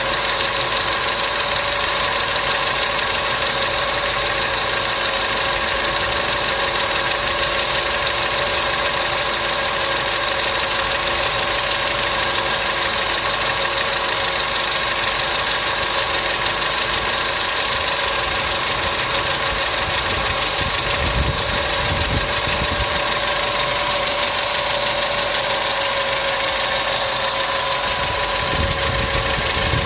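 Mercedes M111 supercharged four-cylinder engine idling with a fast, steady ticking from the valve train, which the mechanic takes for hydraulic lifter (tappet) knock.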